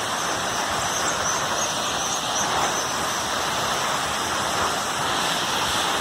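Steady rushing of water falling at a waterfall.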